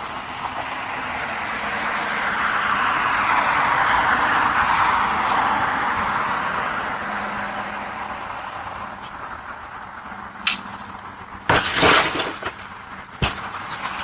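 A vehicle passing, its rushing sound swelling and slowly fading, followed near the end by several sharp clicks and knocks.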